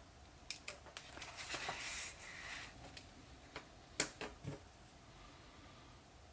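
A few faint clicks and taps with a soft rustle in between, the sharpest click about four seconds in: a hand handling a pen over paper.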